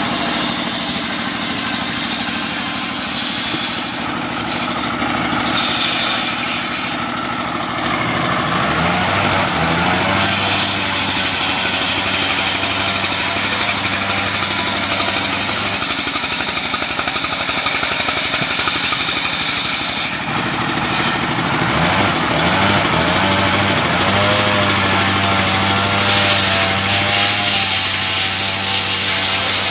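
Engine-driven homemade sawmill cutting coconut-palm wood: the engine runs steadily under load beneath the saw's high hiss. The engine's pitch sags and recovers twice, about a third of the way in and again past two-thirds.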